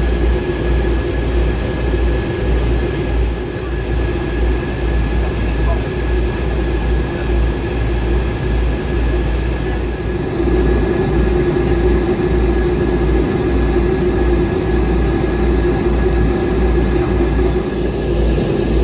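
Cabin noise of a Boeing 757-200 in flight: a steady rumble and hum from its Rolls-Royce RB211 engines and the airflow. It gets a little louder about ten seconds in.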